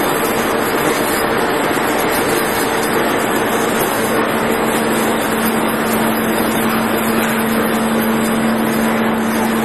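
Wire and cable extrusion line machinery running: a steady, loud mechanical noise with a constant hum, joined by a second, lower hum about five seconds in.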